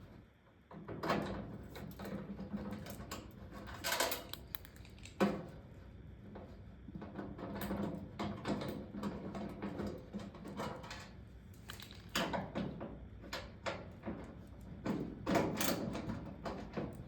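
Toaster oven being taken apart by hand: irregular knocks, scrapes and rattles of its parts being handled and worked loose, with a sharper knock about five seconds in.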